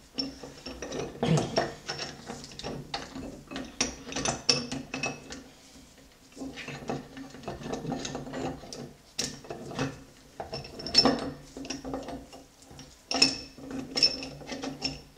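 Gears and selector mechanism of a 1930 Sunbeam Model 9 three-speed gearbox being jiggled into the gearbox casing by hand: irregular metallic clicks, clinks and knocks as the parts shift against each other and the case, with a short lull about six seconds in.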